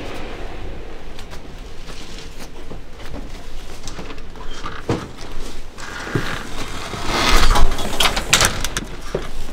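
Knocks, scuffs and rustling of a rolled-up carpet being carried by hand through a house and out a doorway, with a louder rush of noise about seven seconds in.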